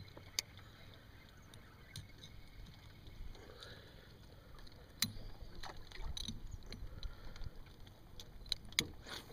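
Metal pliers clicking against the hooks of a crankbait as it is worked out of a northern pike's mouth: a few sharp clicks, more of them near the end, over faint handling noise.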